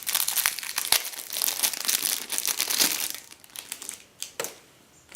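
Packaging crinkling steadily as it is handled, likely as the wireless card's two antennas are unpacked. After about three seconds it stops, and a few light clicks follow.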